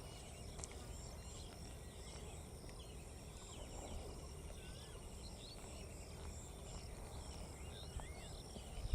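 Countryside ambience: scattered short chirps and whistled calls of several small birds over a steady, pulsing high insect drone, with a low rumble underneath.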